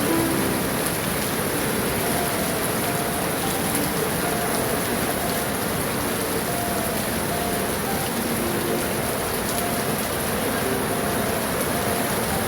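Heavy typhoon rain falling steadily, a dense even wash of noise.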